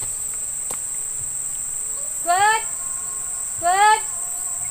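Steady, high-pitched drone of insects calling. Twice, about a second and a half apart, a short call rises in pitch over it.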